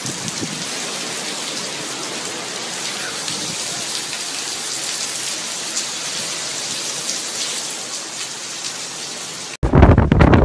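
Heavy hurricane rain pouring steadily, a dense even hiss of the downpour on trees and roof. Near the end it cuts suddenly to loud wind buffeting the microphone.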